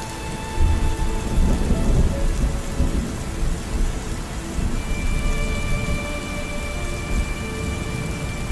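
Steady rain with a low, rolling thunder rumble that swells about half a second in and carries on, under soft sustained background music notes.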